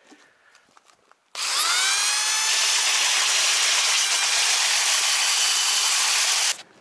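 Home-made electric sander starting up about a second and a half in, its whine rising as the motor spins up, then running steadily as it sands the epoxy-coated fibreglass hull; it stops abruptly near the end.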